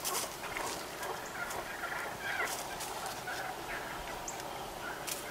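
Wild turkeys calling in the woods: many short overlapping calls, with a few sharp clicks scattered through.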